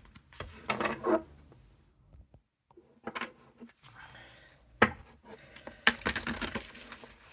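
Oracle cards being handled: scattered light taps and rubbing, a sharp knock about five seconds in, then a quick run of rapid clicks as the deck is squared up and flicked through.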